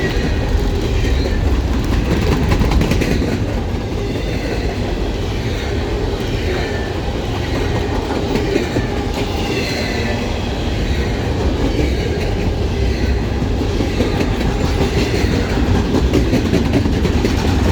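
Norfolk Southern intermodal freight train's cars rolling past close by: a steady, loud noise of steel wheels running on the rails.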